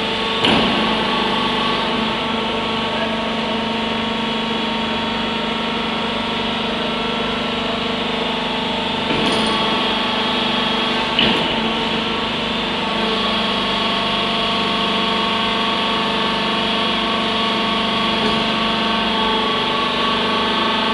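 Stationary rockbreaker boom system's hydraulics running steadily as the boom moves, a constant machine drone with a few steady tones in it. A handful of brief knocks sound over it, the two loudest about half a second in and about eleven seconds in.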